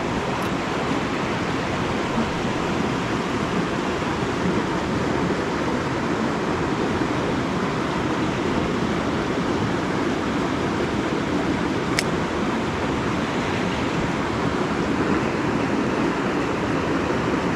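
Steady rush of creek water pouring over a waterfall, with one faint click about twelve seconds in.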